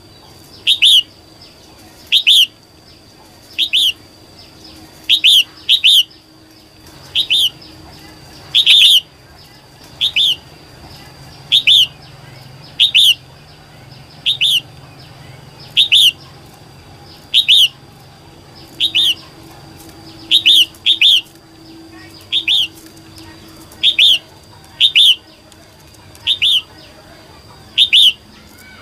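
Female red-whiskered bulbul calls: one short, sharp call repeated about every one and a half seconds, now and then two in quick succession, the female call used to excite male bulbuls into singing.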